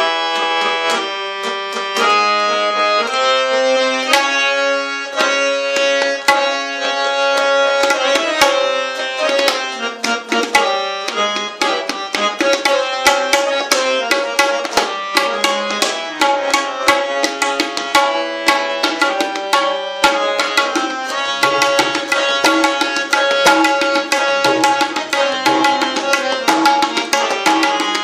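Solo tabla in teentaal (Tritaal, 16-beat cycle) over a harmonium playing a looping lehra melody. The harmonium sounds from the first moment, and the tabla strokes grow faster and denser about halfway through.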